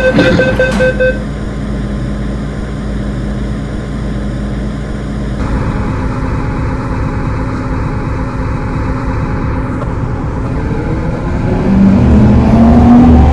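MTR M-Train electric multiple unit pulling away from a platform: the door-closing warning tones stop about a second in, then a steady rumble and hum of the train, with its traction motor whine rising in pitch and getting louder near the end as the train accelerates.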